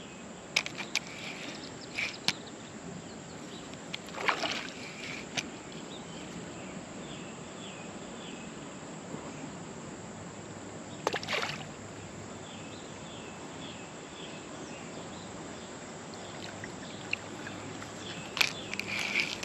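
Short bursts of water splashing and sloshing as a hooked largemouth bass is landed at the water's edge, a few times over, against a steady outdoor hiss. Faint runs of short high chirps come in twice.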